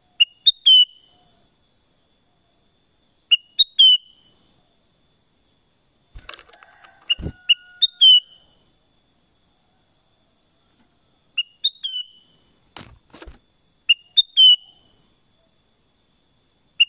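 Black-crested bulbul singing short phrases of three or four quick, clear whistled notes, repeated about every three to four seconds. Two dull knocks come in between, about six and thirteen seconds in.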